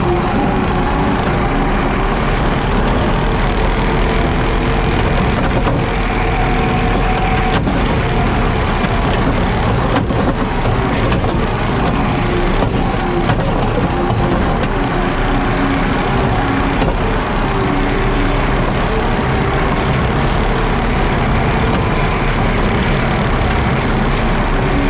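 JCB Teleskid skid steer's diesel engine running steadily while it drives a 7-foot Jenkins bush hog (hydraulic rotary mower) through the grass, a constant loud machine drone whose pitch wavers slightly.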